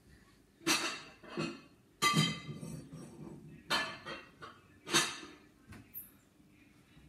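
Glass dishes and crockery clinking and knocking against each other as a kitchen cupboard is rummaged through: a run of separate clatters roughly a second apart, one with a short ring.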